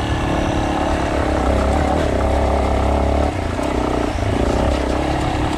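Off-road motorcycle engine running under way, steady and loud, its pitch dropping about three seconds in as the throttle eases or the gear changes.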